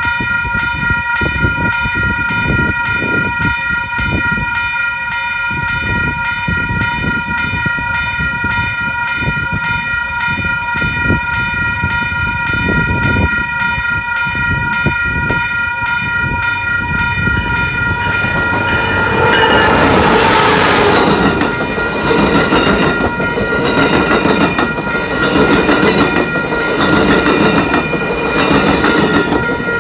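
Railroad crossing bell ringing steadily at a level crossing. About eighteen seconds in, an Amtrak Pacific Surfliner passenger train arrives with a loud rush of noise and passes over the crossing, its wheels clattering rhythmically over the rail joints while the bell keeps ringing.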